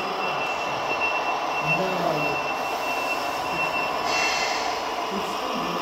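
Steady din of radio-controlled model trucks and machinery running, with a thin high whine that stops about four seconds in and is followed by a short hiss; faint voices underneath.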